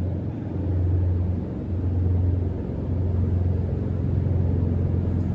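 Stainless steel powder mixer of a snack-extrusion line running, its motor giving a steady low hum.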